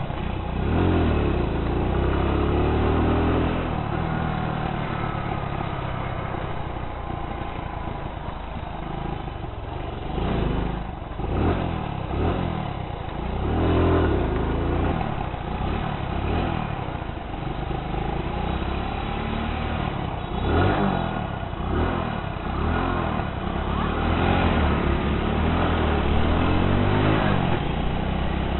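Hero Splendor motorcycle's single-cylinder engine running under way, its pitch rising and falling as the bike speeds up and eases off.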